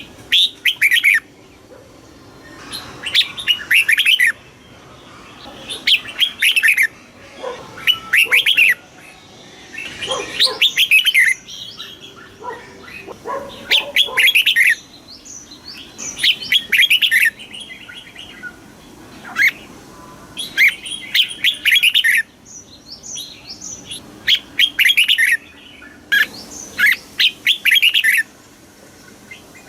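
Red-whiskered bulbul singing: short, quick phrases of chirpy notes, each about a second long, repeated every two to three seconds.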